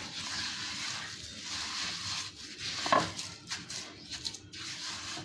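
A hand rubbing and scraping butter creamed with coarse brown sugar against a glazed terracotta dish, a gritty scraping in uneven strokes; the sugar is still grainy and not yet dissolved into the butter. A short high-pitched sound cuts in about three seconds in.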